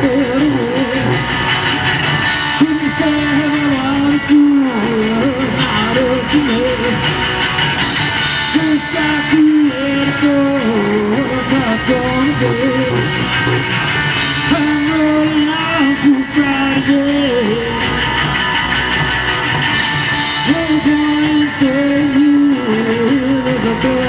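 Live rock band playing loudly: electric guitars, bass guitar and drum kit, with a melody line bending and holding over the band.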